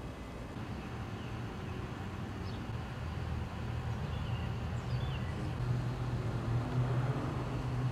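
Outdoor ambience: a steady low rumble that grows a little louder, with a few short bird chirps.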